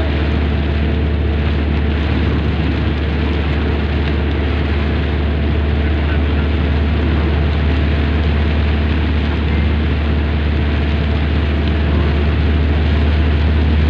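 Steady road noise inside a car driving on a rain-soaked highway: a deep, constant engine and tyre hum with the hiss of tyres on wet pavement.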